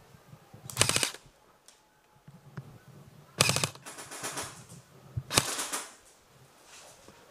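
Airsoft rifle firing on full auto in short bursts: three or four rapid strings of shots, each less than a second long.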